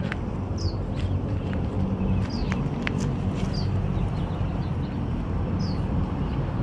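Small bird giving short, high, down-slurred chirps every second or two over a steady low rumble, with a few sharp clicks.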